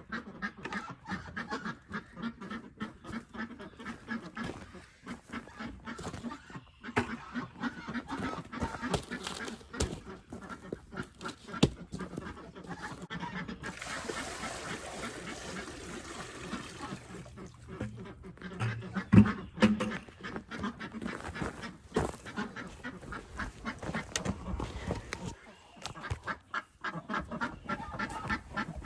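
A flock of domestic ducks quacking over and over in a busy, overlapping chorus. A few seconds of rushing hiss come about midway, and a single loud knock follows a few seconds later.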